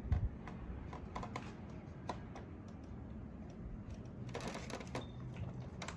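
Soft, irregular wet clicks and smacks of someone chewing a deviled egg, with a short thump right at the start.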